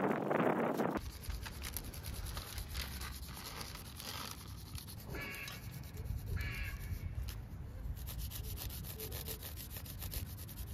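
A crayon stick rubbed rapidly back and forth over paper laid on an engraved stone, a quick steady scratching as the carved lettering is taken up onto the paper. It opens with about a second of wind noise on the microphone before a cut.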